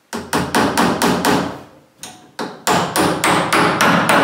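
Hammer driving a nail through a door jamb into a pre-drilled wooden spacer: a quick run of blows, a pause of about a second, then a longer run, about four to five blows a second.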